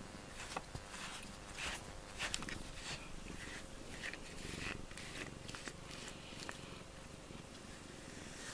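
Domestic cat purring close to the microphone, with soft irregular rustles as its fur rubs against it.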